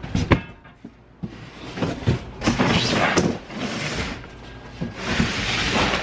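A cardboard box set down with a sharp knock just after the start. Then a large cardboard shipping box scrapes and rustles in long pushes as it is shoved across a concrete garage floor.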